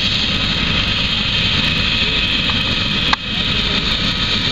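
Helicopter running steadily close by, turbine hiss over a rough low rotor rumble. A brief sharp click about three seconds in.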